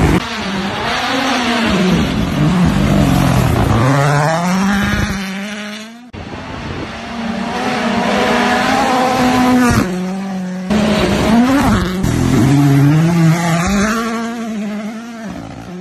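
Ford Puma Rally1 cars' turbocharged 1.6-litre three-cylinder engines revving hard and dropping through gear changes as the cars slide past at speed on gravel, in several passes cut together. The sound fades away about six seconds in and jumps abruptly to a new pass near eleven seconds.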